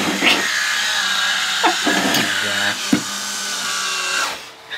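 Battery-powered electric wine opener's small motor whirring steadily as it turns its corkscrew in a wine bottle's cork, then cutting off about four seconds in.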